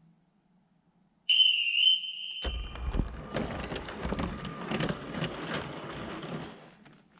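A shrill whistle blown once for about a second and a half, with a slight warble: a departure whistle. Then a motorised Lego train pulls away, its motor and plastic wheels rattling over the track for about four seconds before fading out.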